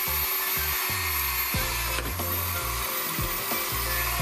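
Electric drill running in a homemade drill press, its bit boring into a square steel tube, under background music with a steady bass beat.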